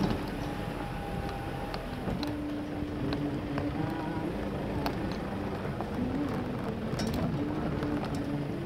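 Vehicle driving slowly over a rough dirt track: engine running with a humming note that comes and goes, tyres on dirt, and scattered knocks and rattles as the body jolts over the bumps.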